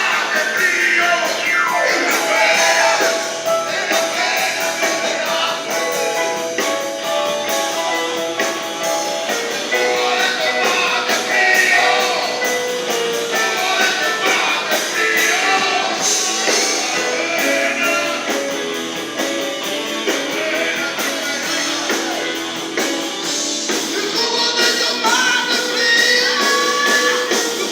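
Live blues-rock band playing, with melodic lead lines over the band and thin, bass-light sound.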